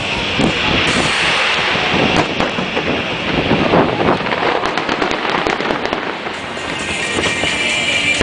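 Fireworks display with many shells bursting and a dense run of crackling pops, over the show's accompanying music.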